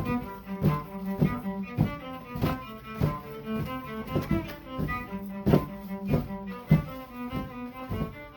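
Solo cello playing a rhythmic tune, each note starting with a sharp stroke, at roughly two notes a second.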